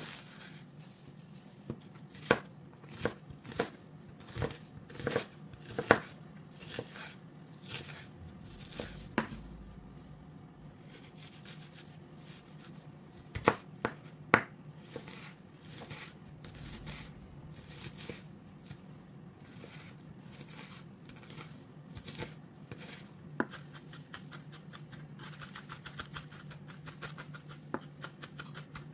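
Knife chopping food on a cutting board: scattered sharp knocks, the loudest about six seconds in and twice around fourteen seconds, then a quicker run of lighter taps near the end.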